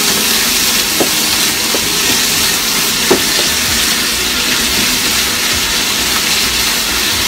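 Lion's mane mushrooms, day lily buds and wood ear sizzling steadily in a pan in a soy, mirin and sugar sauce that is being reduced, stirred with a wooden spatula that gives a few light scrapes.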